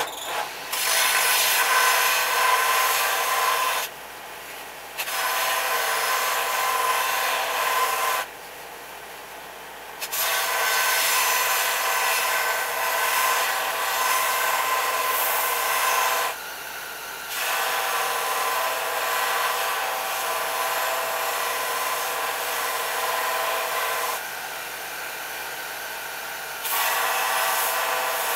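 Lawnmower-blade steel being ground on a power grinder to shape a Bowie knife blade: a loud, harsh grinding hiss in long passes. It drops back four times to a quieter steady run, between passes.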